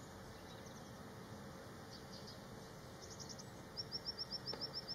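A small bird gives a quick run of about ten short, high, upslurred call notes, roughly eight a second, near the end, after a few fainter high chirps. Under it is a faint, steady hiss of shallow river water.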